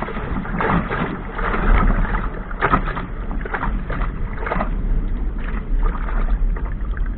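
Water rushing and splashing against a small sailing dinghy's hull as it runs through choppy waves, surging in repeated splashes about once a second, over a low rumble of wind on the microphone.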